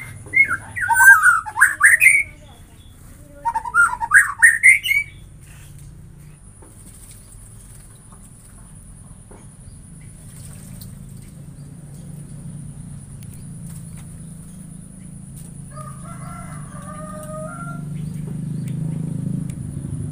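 White-rumped shama (murai batu) singing two loud bursts of rich whistled phrases with quick rising and falling notes in the first five seconds, then only a few softer notes later on. A low rumble grows louder toward the end.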